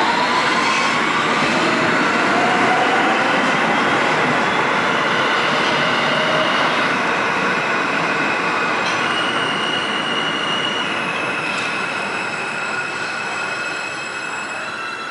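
Kawasaki R160B subway train with Siemens propulsion accelerating away, its traction motors' whine rising in pitch over the first couple of seconds over the steady rumble of wheels on rail. From about nine seconds in, high steady wheel squeals ring out as the sound slowly fades.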